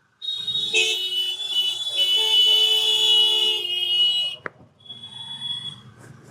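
A loud steady horn blast of about four seconds, then a sharp click and a second, quieter blast about half a second later.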